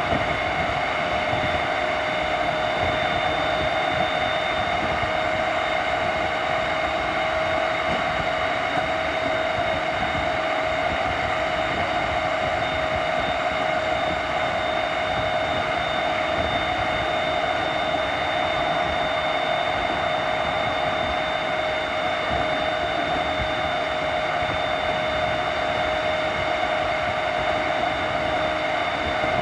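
JR East E231 series electric train, with its Hitachi two-level IGBT inverter, running at a steady speed: rolling noise with a steady whine from its drive that holds one pitch throughout.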